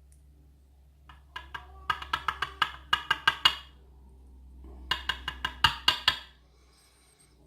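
Two bursts of quick, sharp metallic taps, several a second, as a pin-tumbler lock cylinder being disassembled is knocked against a hard surface to shake a very small pin out of its chamber.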